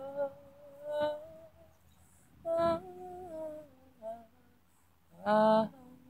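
A woman humming a wordless, slow tune in a few separate held phrases, with short pauses between them; the last phrase, near the end, is the loudest.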